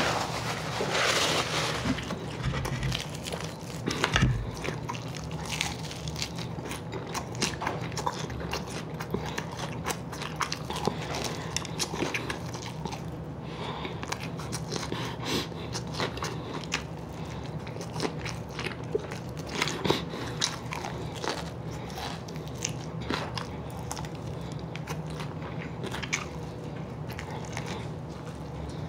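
Close-miked eating of crispy fried chicken wings: biting, crunching and chewing, with many small clicks as meat is pulled off the bones. About a second in, a short rush of noise as a napkin is wiped over the face.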